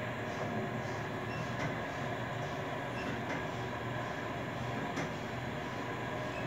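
KONE elevator car travelling upward, heard from inside the car: a steady rumble and hum of the moving car with a couple of faint clicks.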